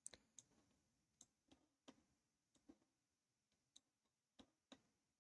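Faint computer mouse clicks, about ten of them at irregular intervals, a few in quick pairs.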